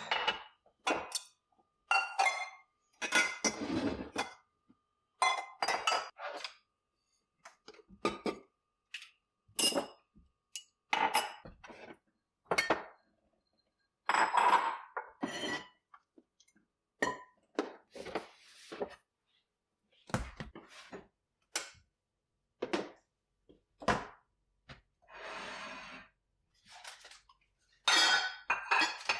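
Ceramic coffee mugs and bowls clinking and knocking against each other and against a hard countertop as they are taken out of a cupboard and set down one after another, in irregular bursts with pauses between.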